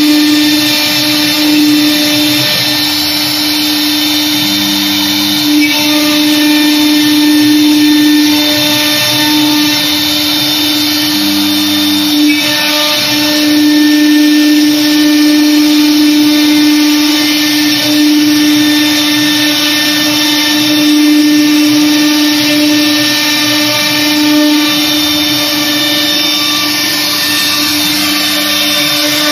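Air-cooled spindle of a CNC router running with a steady whine while its bit carves grooves into a board, the cutting sound swelling and easing as the head moves along the pattern.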